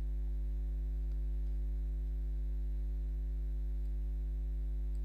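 Steady low electrical mains hum with a stack of evenly spaced overtones, unchanging, with no other sound over it.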